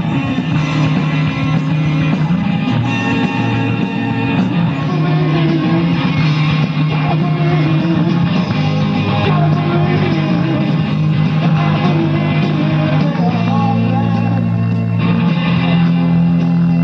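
Post-punk rock band playing live through a large PA: electric guitar, bass and drums, with steady, sustained bass notes under the guitars.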